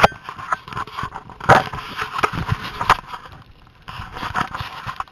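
Skis scraping and chattering over packed snow, heard close through a helmet-mounted camera: a rough, irregular rasping that eases briefly a little past the middle and cuts off suddenly at the end.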